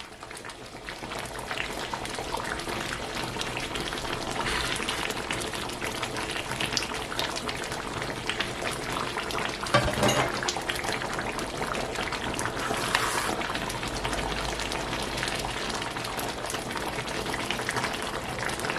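Pot of egusi pepper soup bubbling steadily on the boil, with a constant patter of small pops and one soft knock about ten seconds in.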